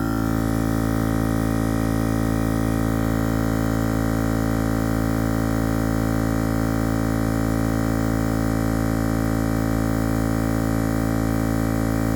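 Small 12-volt tyre-inflator compressor, powered from the car battery, running steadily with a droning hum and a fast, even pulsing. It is pumping a freshly plugged tyre up, the pressure rising toward 35 psi.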